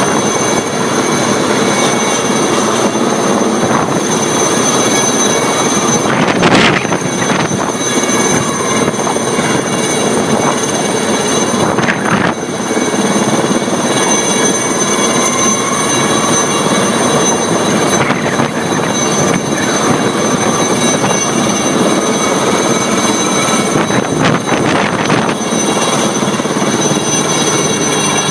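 Helicopter hovering overhead with a load on its long line: steady rotor noise with a high turbine whine, briefly louder about six seconds in.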